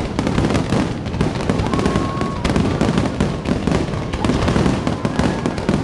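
Fireworks display going off in a rapid, continuous barrage of bangs and crackling.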